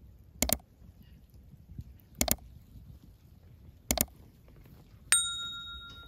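Three sharp mouse-click sound effects, spaced under two seconds apart, then a single bright bell ding about five seconds in that rings out: a subscribe-button notification-bell sound effect.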